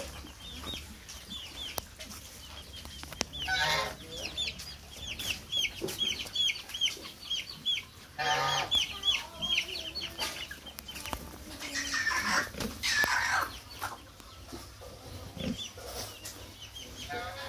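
Chickens calling: a quick run of short, high peeps, about three a second. Louder, longer calls break in three times, near 4, 8 and 12–13 seconds in.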